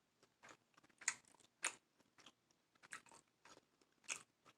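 Close-miked chewing and biting by a person eating seafood boil: soft, irregular mouth clicks and small crunches, a dozen or so short ones.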